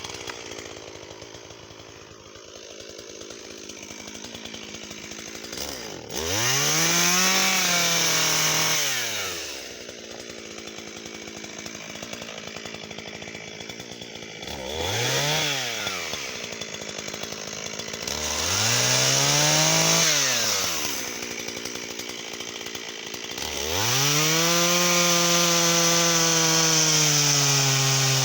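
Shindaiwa 488 two-stroke chainsaw idling, then revved up and let back down to idle three times, each burst lasting a few seconds. Near the end it is held at high revs for several seconds, its pitch sagging a little, as it cuts wattle wood.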